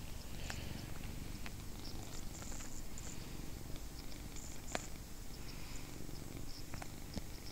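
Domestic cat purring steadily as it is stroked on the head, a continuous low rumble with a few faint clicks.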